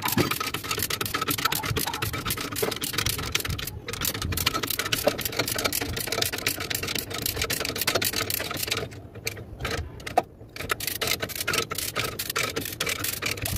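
Rapid, steady metallic clicking from a chain hoist being worked, with a short break and one sharp click about ten seconds in.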